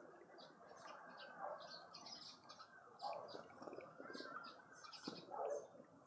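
Small birds chirping around a garden feeder: a busy scatter of short, high chirps, with a few lower calls mixed in.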